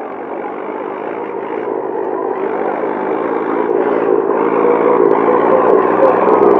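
Tractor engine running as the tractor drives closer, growing steadily louder.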